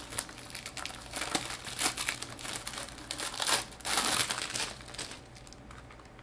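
Plastic packaging crinkling and rustling as it is handled, in a dense run of small crackles. It dies away about five seconds in.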